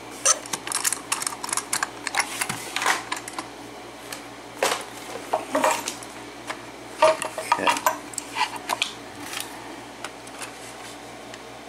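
Irregular sharp metal clicks and clinks from handling an opened pin-tumbler padlock and lock picks, thinning out near the end.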